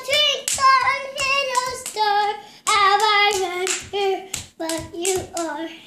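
A young girl singing a wordless-sounding tune in a high voice while clapping her hands along in time.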